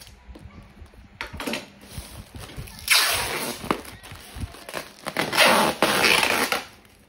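Packing material being handled: two long rustling bursts, the first about three seconds in and the second from about five to six and a half seconds, amid scattered clicks and knocks.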